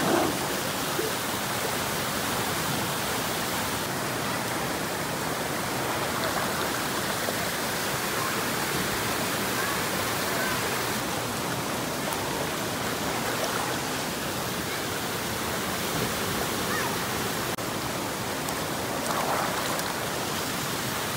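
Steady rush of water pouring down a narrow rock chute of a waterfall cascade and splashing into the pool below.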